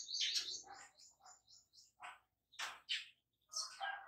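A small bird chirping: a quick run of repeated high notes that slows and fades out over the first couple of seconds, followed by a few single chirps.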